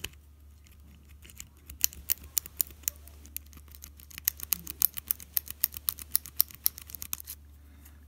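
Rapid, irregular metallic clicking of a lock pick being rocked in the pin-tumbler keyway of a brass Abus 83/40 padlock under tension, starting about two seconds in and stopping shortly before the end. A low steady hum runs underneath.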